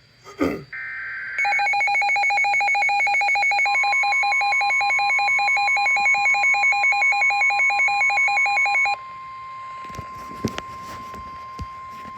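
Emergency alert signalling: a short burst of the warbling SAME header data tones, then a fast two-tone electronic alarm trilling for about seven seconds. Under it, the steady 1050 Hz NOAA Weather Radio warning alert tone starts and continues alone after the alarm cuts off.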